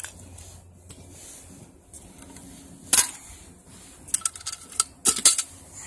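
Lid of a metal gallon paint can being pried off with a tool: sharp metal clicks and clinks, one about three seconds in and a quick cluster of them near the end.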